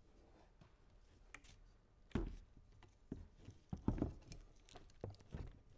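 A handful of short knocks and clunks as a 3-axis camera gimbal is shifted and set down into a foam-padded hard plastic carrying case, starting about two seconds in after faint handling rustle.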